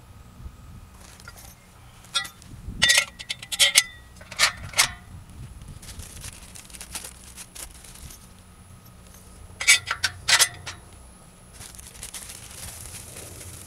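Sharp metallic clinks and clanks of tracker frame bars and bolts being handled and fitted together, in a cluster about two to five seconds in and another brief cluster near ten seconds.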